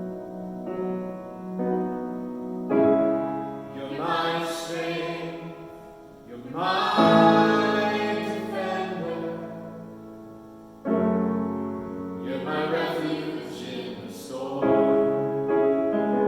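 Piano playing slow, sustained chords, with a singing voice holding long, wavering notes over it in several phrases.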